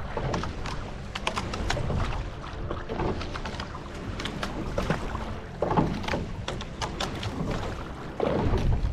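Water splashing and rushing along the hull of a single scull being rowed through choppy water, with many small splashes and wind buffeting the microphone.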